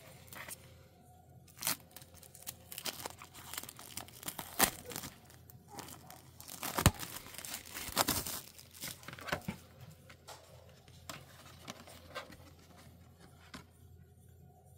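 Plastic shrink wrap being torn and peeled off a CD digipak, crinkling and crackling irregularly, thickest in the middle and tapering off over the last few seconds.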